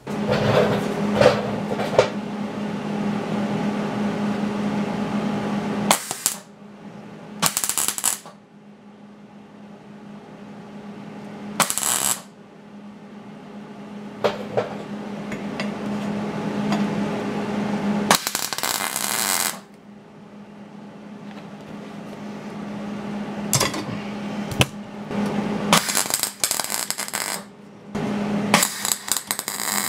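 Stick (arc) welding: several short bursts of arc crackle a second or so long as spot welds are struck, over a steady low hum.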